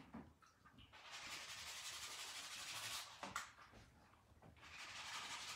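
Faint rustling and rubbing of a silk screen stencil's plastic backing sheet as it is pressed back onto the stencil's sticky side. The sound comes in two spells a second or two long, with a single click between them.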